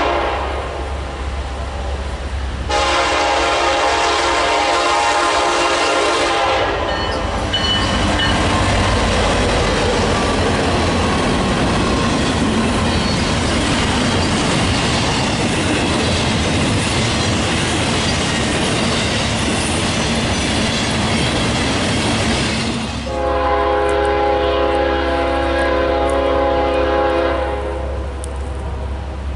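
Train horn sounding a chord of several tones: a brief toot at the start, a long blast of about four seconds, then the rushing, clattering noise of the train passing, and another blast of about four seconds near the end.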